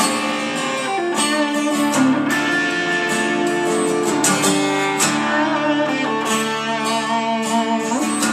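Music: an instrumental break in a song, with strummed guitar carrying the tune.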